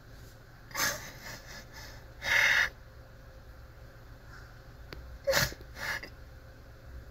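A man breathing in sharply and sniffling, four short bursts of breath a second or two apart.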